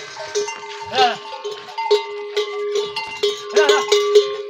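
Metal neck bell on a camel clanking over and over, its ring carrying on steadily as the camels drink. A couple of short, arching calls from the camels break in, about a second in and again near the end.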